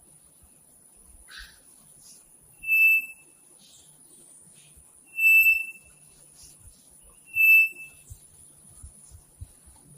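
A bird calling three times, each call a loud, steady whistled note about half a second long, a couple of seconds apart, with a few fainter chirps between.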